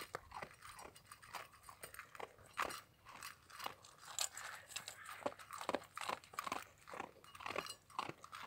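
Dogs, a large shepherd-type dog and a toy poodle, crunching and chewing dry kibble from their bowls, in quick, irregular crunches.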